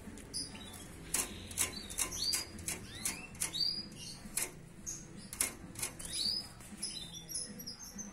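Young domestic canary, about four months old and just beginning to find its voice, giving a scattered series of short sharp chirps and arching call notes, two or three a second.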